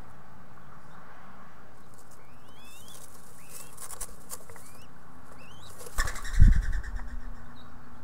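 Adult mourning dove flapping its wings and taking off from the nest, with a loud burst of wingbeats about six seconds in. A few short rising chirps come a couple of seconds before it.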